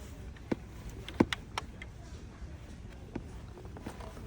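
A few sharp clicks and knocks, the loudest about a second in, over a low steady rumble.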